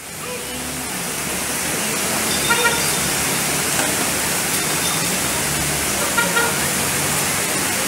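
Heavy rain and fast-flowing floodwater rushing down a street, a steady loud wash of noise that fades in at the start. Two short pitched toots sound about two and a half and six seconds in.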